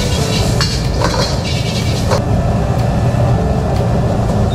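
Gas wok burner running with a steady low rush. Metal clinks and scrapes of cooking in the wok come through the first two seconds or so, then stop.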